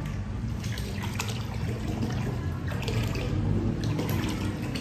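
Liquid poured in a thin stream from a plastic bottle into a plastic bucket of water, trickling and splashing.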